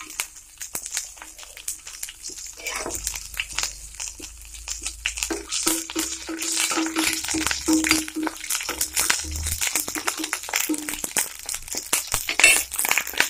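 Mustard seeds, chana dal and cumin crackling and spluttering in hot oil in a steel kadai, a rapid irregular patter of pops that gets busier about halfway through.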